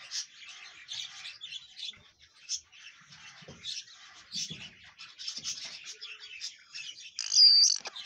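Indian ringneck parakeet chattering in a quick run of short, scratchy high notes, then giving one loud, shrill call near the end.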